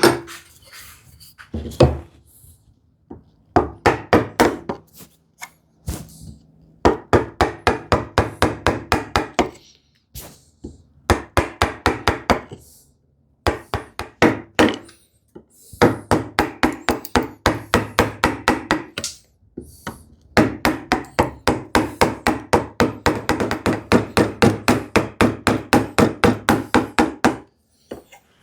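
Quick runs of sharp wooden knocks, about five or six a second, in bursts of a few seconds with short pauses: a mallet tapping a chisel to chop waste from a piece of wood.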